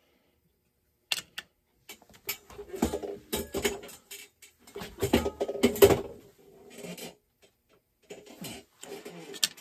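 Irregular knocks and clatter of hard objects being handled and moved around under a workbench, starting about a second in, some hits briefly ringing.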